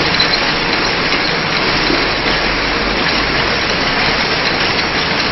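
Two-side labeling machine for round bottles running, with its conveyor carrying bottles through: a loud, steady, even machine noise.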